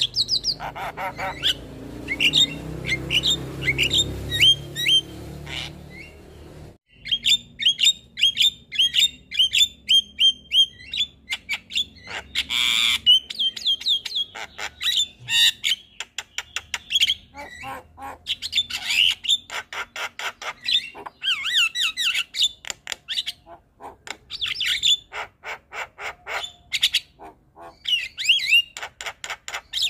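Javan myna calling and singing: a fast, continuous chatter of sharp chirps, clicks, squawks and whistled notes. A low background rumble underlies the first several seconds.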